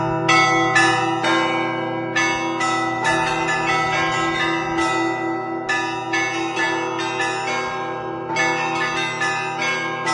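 Russian Orthodox church bells rung in a festive peal (zvon): quick rhythmic strikes of small bells, a few a second, over the long hum of a larger bell, in repeating phrases.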